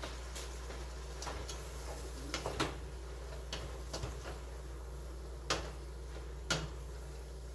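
A utensil clicking and scraping against a stainless steel pot as cubed eggplant is stirred: scattered light knocks, the loudest about five and a half and six and a half seconds in, over a steady low hum.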